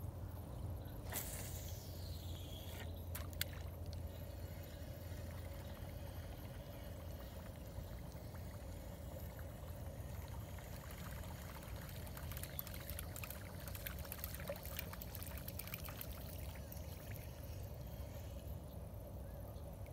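Bounty Hunter Turbo Buzz buzzbait lure gurgling and splashing as it is retrieved across the water's surface. About a second in there is a quick falling whine, followed by a couple of clicks.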